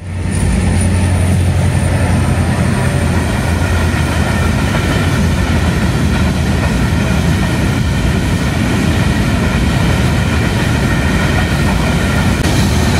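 Goods train's open freight wagons rolling past at close range: a steady, loud rumble of wheels on rail, with a thin high whine that fades over the first few seconds.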